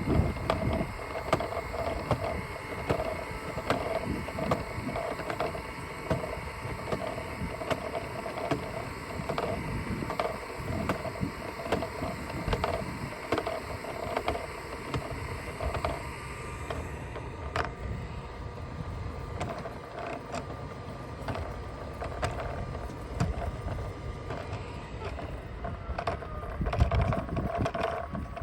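Roomba robot vacuum driving along, its motor a steady whine, with frequent light clicks and knocks. Low wind rumble on the microphone near the start and again near the end.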